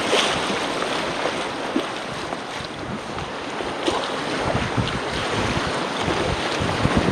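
Rushing whitewater of a river rapid heard from a packraft, with wind buffeting the microphone and scattered splashes of the paddle blade dipping into the water.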